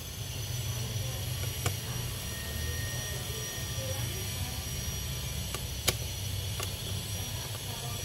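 A few sharp clicks and taps as a laptop's copper heat-pipe cooler and its screws are handled, the loudest about six seconds in, over a steady low hum.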